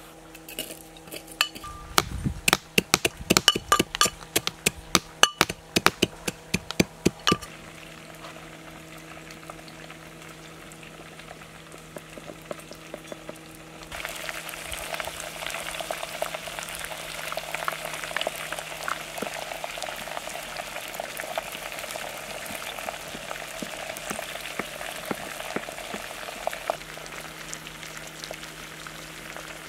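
Metal pestle pounding walnut kernels in a metal mortar: sharp clinking strikes, about three a second, for several seconds. About fourteen seconds in, a steady sizzle starts as pomegranate paste goes onto chicken frying in a hot pan, and stops near the end.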